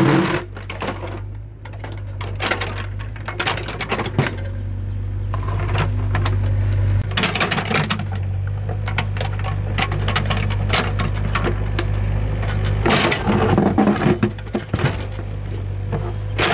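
Excavator engine running with a steady low hum, under repeated metallic clinks and clatters as the machine works.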